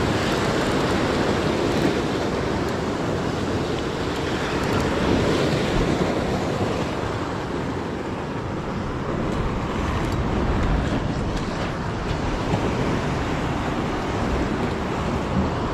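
Sea surf breaking and washing over the rocks of a jetty, a steady rushing noise, with wind on the microphone.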